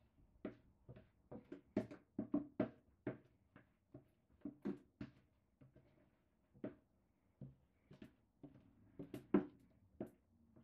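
A wooden spoon scraping and knocking against a plastic mixing bowl while cake batter is worked out of it into a cupcake tin: a string of short, irregular knocks, a few a second, the loudest about nine seconds in.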